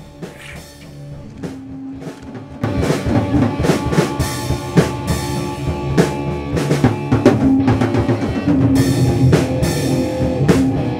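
Band music with a drum kit: a sparse, quieter opening, then the full band with bass drum and snare comes in about two and a half seconds in and plays on with a steady beat.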